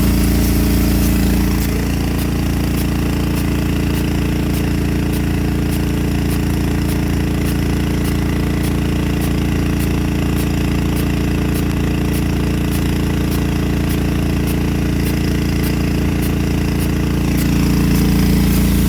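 Nelson P100 big gun sprinkler running on a .50" taper bore nozzle, with an engine running steadily under a hiss of spray. From about two seconds in until near the end, the sprinkler's drive arm ticks in an even rhythm of about two strikes a second.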